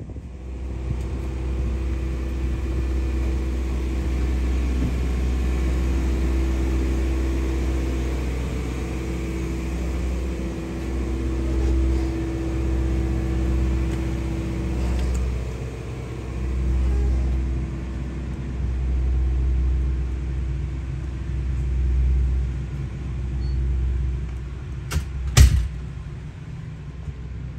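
Sightseeing boat's engine running, a steady hum over a low rumble that swells and fades, heard from on board. Two sharp knocks near the end are the loudest sounds.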